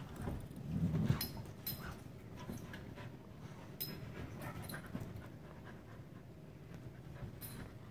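Dogs panting after play, a steady rough breathing, with a louder low rumble about a second in and a few sharp light clicks scattered through.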